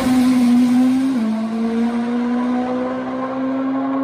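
A Top Fuel nitro-burning drag motorcycle engine running loud at full throttle as the bike pulls away down the strip. Its single engine note sags slowly in pitch, drops sharply in a step about a second in, then holds steady.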